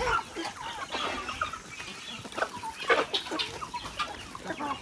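A backyard flock of chickens clucking all around, many short overlapping calls, with a brief sharp knock or rustle near three seconds in.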